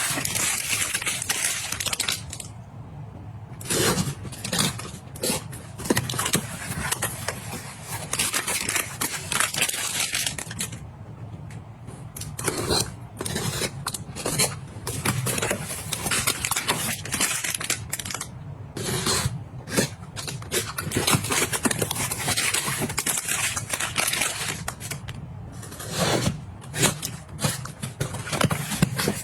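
A busy run of handling sounds: scraping, clicking and rustling as objects are picked up and set down, with two short lulls.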